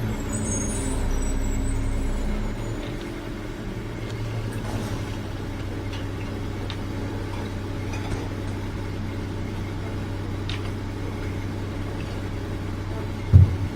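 A steady low mechanical hum, like a running motor, with a few faint clicks and one short thump near the end.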